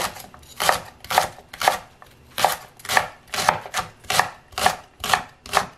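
Chef's knife chopping a thick green onion (daepa) into chunks on a wooden cutting board: a steady run of crisp knife strikes, about two a second, with a brief pause about two seconds in.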